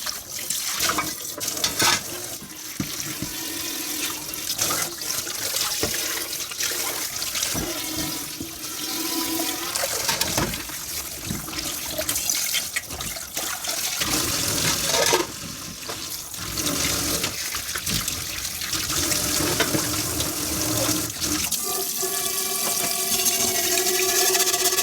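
Tap water running into a kitchen sink during dishwashing, with scattered clinks and knocks of dishes being handled. Near the end a steady pitched tone with several overtones joins the water.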